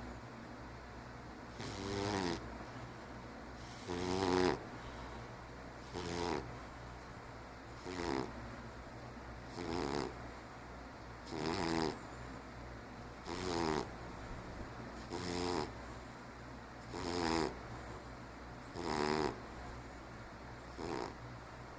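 A 15-year-old cat snoring in its sleep: a rattling snore on each breath, about one every two seconds, eleven in all, over a faint steady low hum.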